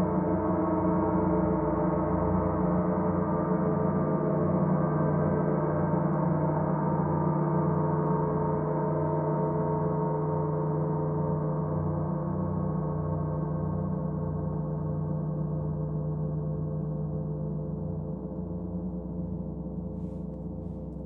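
Bronze gong with a hammered centre ringing on with a dense, layered wash of sustained tones and a slow pulsing in its low hum, with no new strikes; the sound dies away gradually over the last several seconds.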